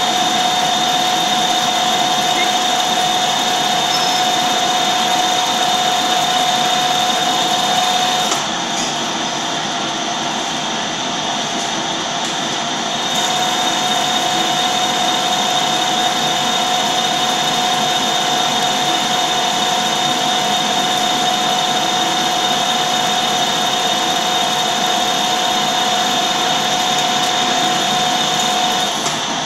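Metal lathe running while turning a large metal workpiece, with a steady high-pitched whine over the machine noise. The whine breaks off about eight seconds in, the lathe keeps running for about five seconds without it, then it returns and holds until near the end.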